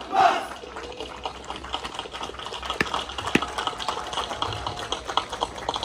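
A squad of firefighter trainees shouts the last word of a group battle cry, ending about half a second in. After that comes a low crackling background of small clicks with a faint, steady high-pitched tone.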